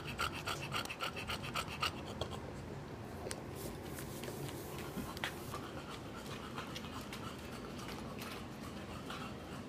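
English bulldog panting rapidly close to the microphone, about four or five breaths a second. The panting stops after about two seconds, leaving a few light clicks.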